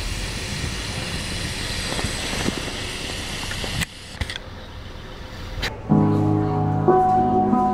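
A steady rushing background noise for the first four seconds, dropping after a cut. About six seconds in, live band music from a stage starts suddenly and is the loudest sound.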